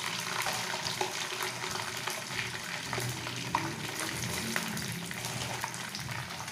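Potato sticks sizzling in hot oil in a frying pan: a steady sizzle dotted with many small crackles.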